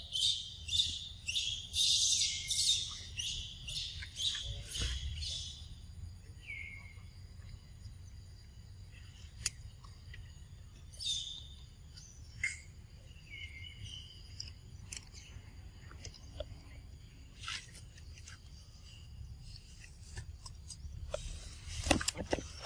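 High-pitched chirping calls, rapid and repeated about three a second for the first five seconds or so, then only scattered chirps over a faint steady high hum for the rest.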